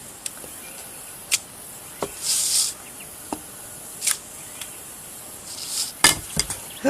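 Handling noises of hand stamping: several sharp taps and clicks as a stamp and papers are set down and moved, with a cluster of louder taps near the end and two short hissy rustles.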